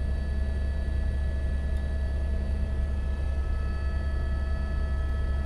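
Helicopter in flight, heard from inside the cabin: a steady, loud low rumble of rotor and engine with constant high whining tones from the turbine.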